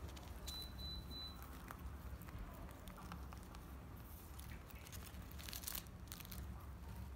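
Foil chocolate wrapper crinkling and tearing as a rabbit bites and tugs at it, in scattered faint crackles. The crinkling grows louder about five and a half seconds in, as the rabbit shakes the wrapped chocolate in its mouth.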